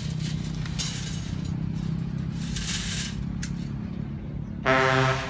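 Steel rebar wire being worked by hand, with metallic scraping and clinking twice over a steady low hum. Near the end a loud steady pitched tone sounds for about half a second.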